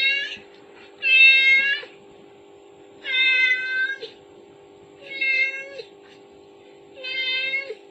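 Cat meowing repeatedly: the end of one call, then four more similar calls about two seconds apart, each dipping in pitch at its close, over a steady faint hum.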